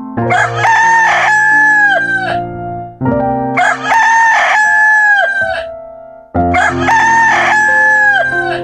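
Cockerel (rooster) crowing three times, about three seconds apart. Each crow is a cock-a-doodle-doo of about two seconds that drops in pitch at the end, over background music.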